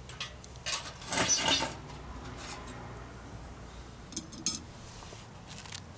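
Metal cookware and utensils clattering: a short run of rattling clinks about a second in, then a few lighter clinks later.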